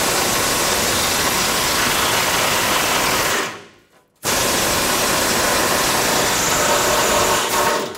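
Pneumatic air ratchet running in two bursts of about three and a half seconds each, spinning the 18 mm nuts off the crossmember mounting bolts. Each burst tails off as the trigger is let go.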